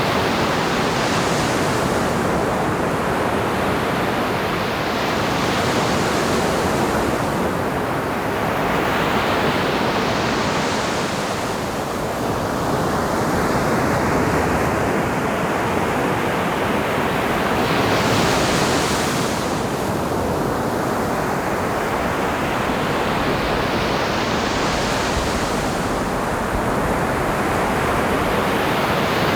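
Ocean waves breaking on a beach: a steady wash of surf that swells into a louder hiss four times, roughly every nine or ten seconds.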